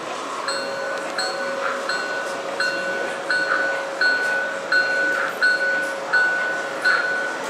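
A chime-like electronic ding repeating about every 0.7 s, over a steady held tone that starts about half a second in and stops just before the end.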